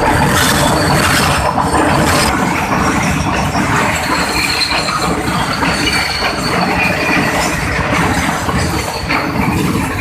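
Train carriages rolling directly overhead, recorded from between the rails: a loud, steady rumble of wheels on track with clacks and a thin high squeal of steel wheels on rail in places.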